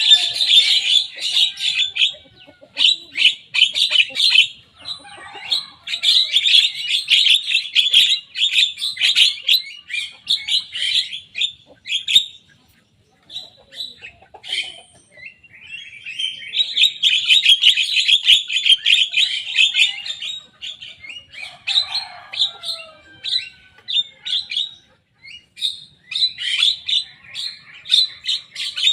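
A young Javan myna in full song: long bouts of rapid, harsh chattering notes, broken by short pauses about twelve and twenty-five seconds in.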